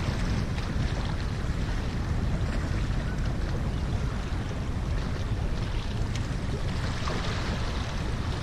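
Headwind buffeting the microphone in a steady rumble, over choppy seawater sloshing against the harbour quay wall.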